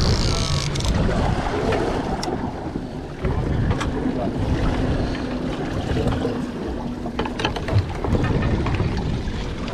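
Wind buffeting the microphone on a fishing boat at sea, with a low steady engine hum from about halfway through and scattered light clicks and knocks.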